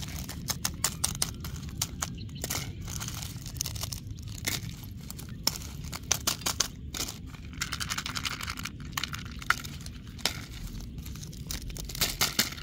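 Plastic lollipop and candy wrappers crinkling, with many small sharp clicks, as wrapped sweets are picked up and dropped into a plastic basket.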